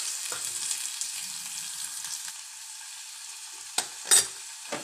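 Freshly added chopped onions sizzling in hot oil in a steel pot, the hiss slowly dying down as they cook. A sharp knock about four seconds in stands out above the sizzle.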